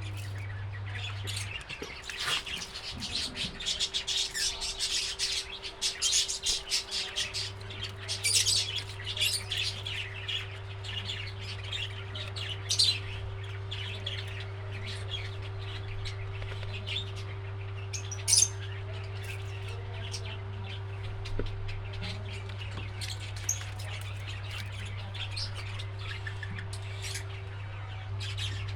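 Small pet parrots chirping and squawking, busiest in the first half and sparser later. A steady low hum runs underneath and drops out for a few seconds near the start.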